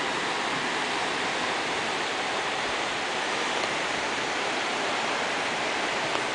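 Steady rush of fast-flowing floodwater from a river over its banks, an even noise that does not change.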